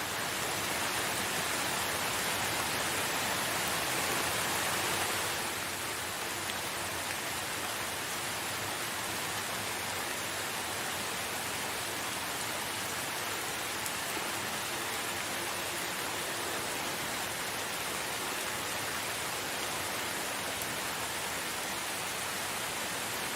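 Steady rain falling, a dense even hiss of drops; it is a little heavier for the first five seconds or so, then eases slightly and holds steady.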